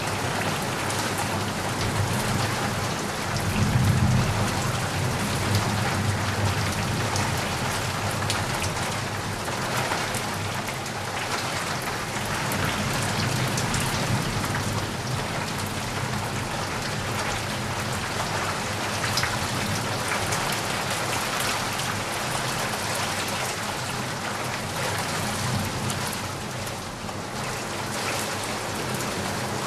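Steady heavy rain falling, a dense even hiss of drops. A low rumble swells briefly about four seconds in.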